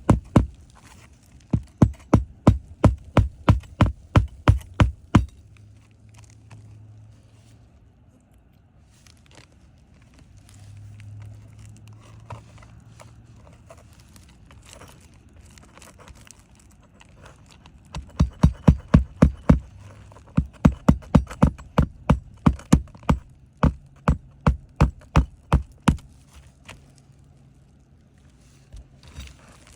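Runs of hard, rapid knocks, about three to four a second, like an object being hammered repeatedly. The knocks stop for a long stretch in the middle, where there is quieter scraping and handling with a faint low hum.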